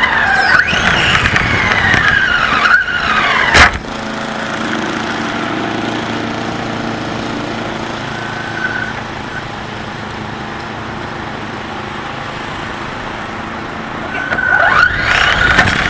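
Radio-controlled car's motor whining, its pitch sliding up and down as the car speeds up and slows, with a sharp knock about three and a half seconds in. The whine then drops away to a steady quieter background for about ten seconds and comes back near the end.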